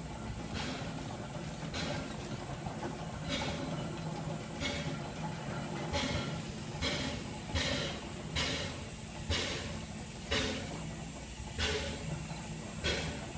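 Climax geared steam locomotive drawing slowly toward the platform: a steady low rumble with sharp exhaust chuffs and steam hiss about once a second, the beats spreading out a little near the end as it slows.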